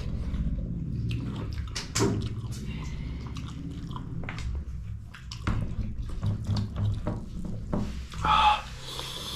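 Close-up wet eating sounds: rice and brothy pork being mixed and chewed, with many small clicks and smacks, and a louder wet sound about eight seconds in.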